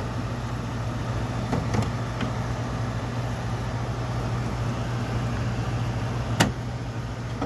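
Amana Cool Zone 5,000 BTU window air conditioner running, a steady low hum from its compressor with fan noise over it. A few light clicks, and one sharp click about six and a half seconds in.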